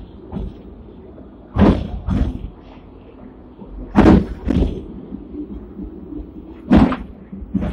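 Hong Kong Millennium tram's steel wheels knocking over rail joints as it runs, three pairs of sharp clacks about half a second apart, over the tram's steady low rumble.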